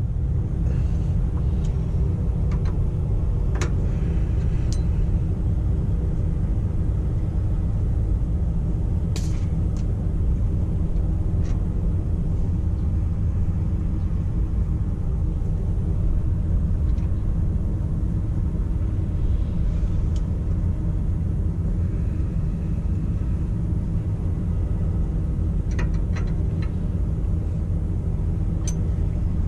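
A large engine idles with a steady low rumble, and a few light clicks from hand work on a truck's AC pressure switch are heard over it.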